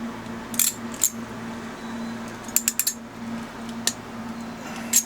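Light, sharp clicks and clinks of small hand tools and Ethernet cable wires being handled while the wires are straightened and trimmed for an RJ45 plug, with three or four quick clicks bunched together midway. A steady low hum runs underneath.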